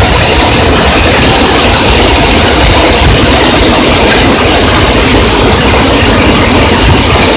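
Waterfall pouring into its plunge pool close to the microphone: a loud, steady rush of falling water with a deep rumble underneath.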